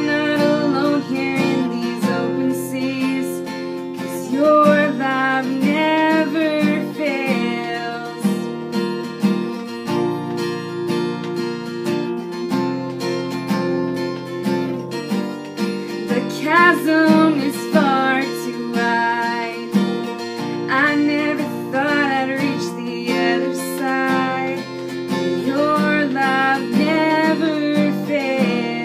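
Acoustic guitar strummed in steady chords with a woman singing over it, the voice dropping out for a few seconds in the middle while the guitar carries on.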